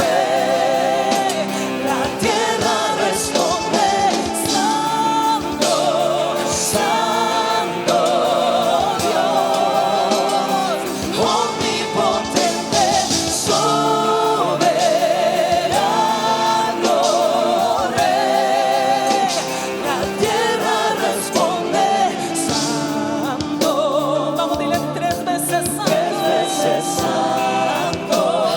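Christian worship band music with several voices singing long held notes with vibrato over the instruments.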